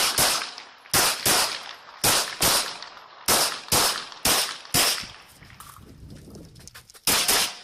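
Pistol shots fired in quick pairs (double taps) during a practice match stage: about ten shots in pairs roughly a second apart, a pause of about two seconds, then a final pair near the end.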